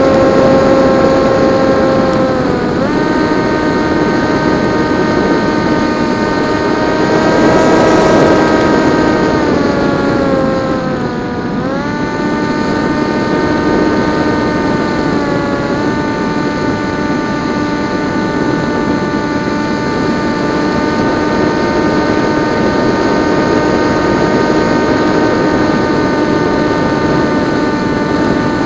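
PopWing RC flying wing's electric motor and propeller whining steadily in flight over a rush of air. The pitch shifts with throttle: a quick dip and rise a few seconds in, a slow fall and recovery around the middle, and a small step a few seconds later.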